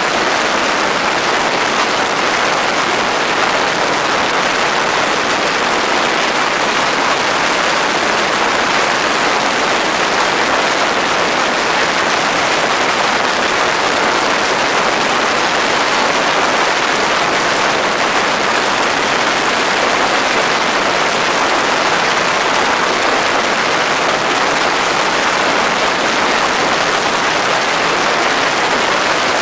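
X'Air microlight engine and propeller running steadily at high power during a static RPM check after the propeller pitch was adjusted. It is a loud, even rushing noise with no clear engine note and no change in speed. The owner finds it reaches only about 5900 rpm, not enough power.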